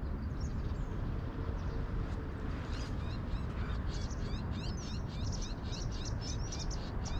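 Small birds chirping in quick, repeated high notes that start a couple of seconds in and keep going, over a steady low background rumble.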